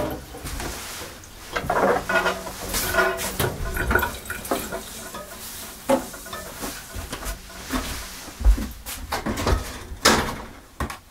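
Kitchenware being handled at a sink: dishes and pots knocked and set down in a run of irregular clicks and knocks, with brief ringing about two to three seconds in.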